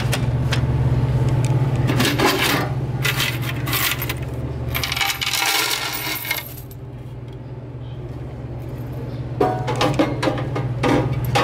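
Coins clattering and rattling in a vending machine's plastic coin box, heaviest about five to six seconds in, with more handling clicks and knocks near the end. A steady low hum runs underneath.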